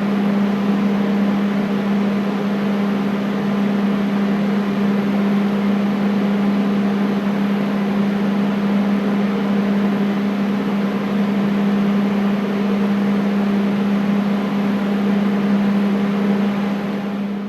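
Air conditioner running steadily: a constant low hum over an even rush of air.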